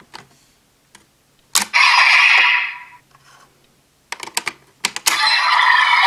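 Hard plastic clicks as a Core ID is taken out of and snapped into a DX Desire Driver toy belt. A short loud electronic burst from the toy comes about a second and a half in, and the driver's loud electronic sound effects start up again about five seconds in.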